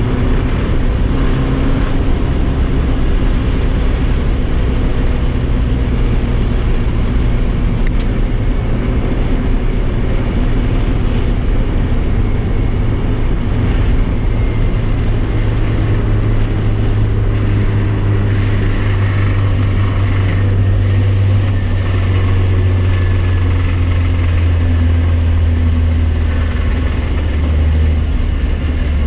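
Porsche 944 engine running continuously at track pace, its pitch shifting up and down with no pause.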